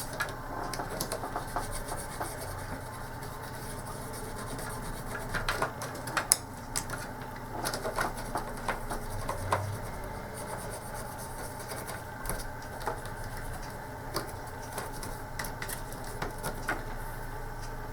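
Scattered small clicks, taps and scrapes from handling plastic joystick parts on a workbench, over a steady low hum.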